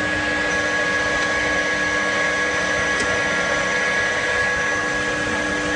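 Carpet washing machine running: a steady mechanical whir with a constant, even hum of several tones underneath.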